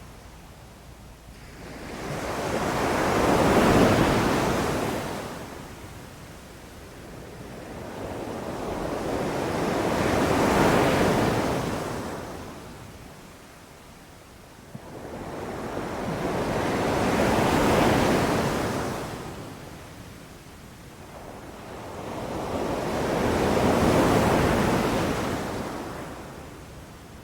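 Ocean waves washing onto a beach, a steady hiss that swells and fades four times, each wave cresting about every six to seven seconds.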